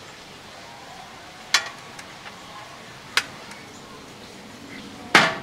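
Parts of a round wall-mounted light fixture clicking and knocking as it is handled and fitted to the wall: two sharp clicks about a second and a half apart, then a louder knock near the end.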